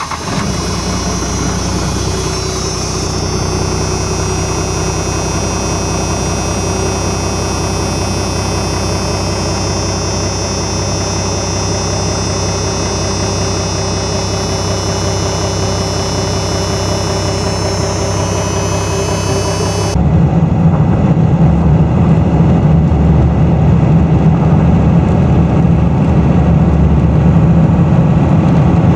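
A 12-valve Cummins 5.9-litre inline-six turbo diesel running steadily just after being started. About two-thirds of the way in, the sound turns abruptly louder and deeper.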